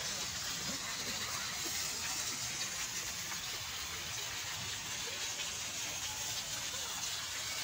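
Small fountain's water jets splashing steadily into a shallow stone basin.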